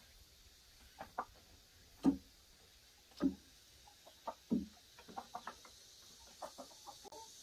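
Chicken clucking: short single clucks about a second apart at first, the loudest about two seconds in, coming quicker in small runs after about five seconds.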